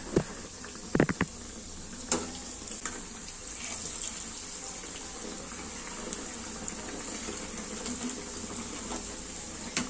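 Bread pakoras deep-frying in hot oil in a kadhai on a high flame, a steady sizzle. A slotted steel spoon clicks against the pan a few times about a second and two seconds in as the pieces are turned.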